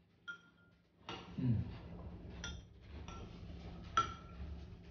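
Metal spoons clinking against ceramic bowls while eating: several short clinks, each with a brief ring. The sharpest comes about four seconds in.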